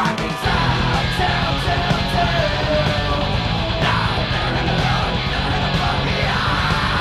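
Live hard rock band playing loud: electric guitar, bass guitar and drum kit, with a male singer singing into the microphone. The full band comes in just under half a second in.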